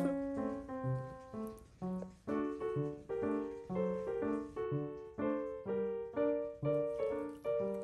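Background piano music: a light tune of short, evenly spaced notes over lower bass notes.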